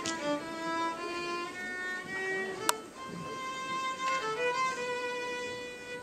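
Slow violin melody of long held notes. A single sharp click cuts through it a little before halfway.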